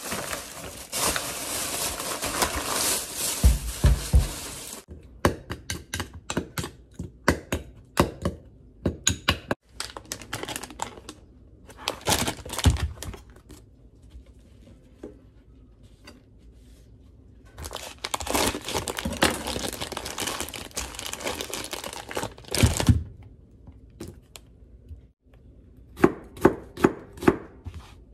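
Plastic grocery bags and onion packaging rustling and crinkling as they are unpacked and opened, with scattered clicks and handling knocks. Near the end, a kitchen knife chopping peeled onions on a cutting board in quick strokes, about three a second.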